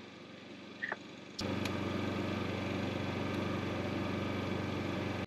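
An engine starts running suddenly about a second and a half in and carries on at a steady idle.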